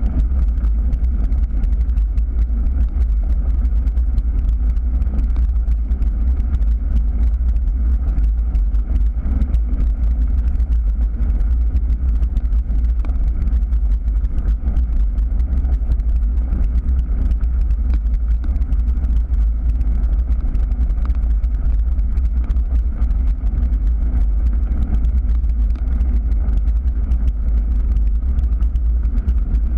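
Steady wind buffeting on a moving bike-mounted camera's microphone, a heavy low rumble, mixed with tyres rolling over a gravel path.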